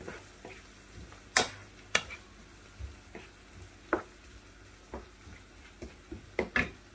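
A few short, sharp clicks and taps of kitchen handling, the loudest about a second and a half in, over a faint low hum.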